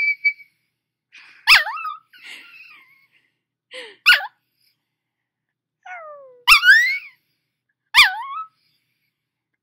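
Small puppy howling in a series of short, squeaky yelping calls, each sliding up or down in pitch, about every one to two seconds. The squeaky sound is put down by the owner to the puppy having just woken up.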